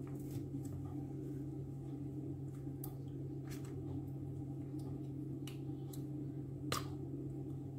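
A steady low hum under a handful of small, sharp clicks and taps from a bottle and kitchen items being handled. The sharpest click comes near the end.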